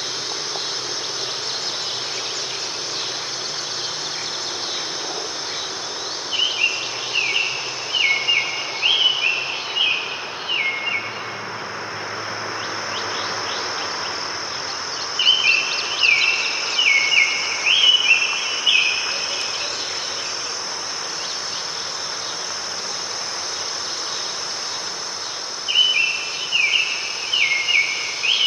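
Steady high-pitched insect chorus, like crickets, under a songbird that sings three phrases of quick repeated down-slurred whistled notes, each phrase about four seconds long, spaced roughly ten seconds apart.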